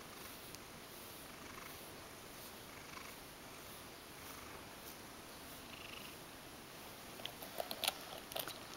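Ragdoll cat purring steadily while being brushed. Near the end, a quick run of sharp clicks and scrapes as the cat bites at the plastic pin brush.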